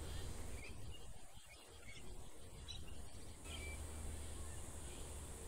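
Faint outdoor ambience: a steady high-pitched insect drone over low background noise.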